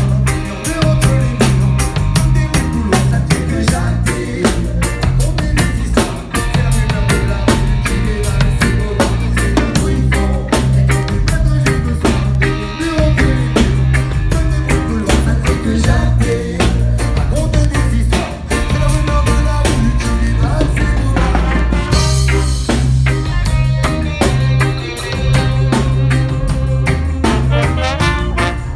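Reggae band playing: a drum kit with rimshots over a heavy bass line, with a cymbal wash coming in about two-thirds of the way through.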